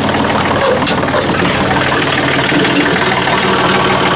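John Deere 2032R compact tractor's three-cylinder diesel engine idling steadily while it warms up, not yet up to temperature.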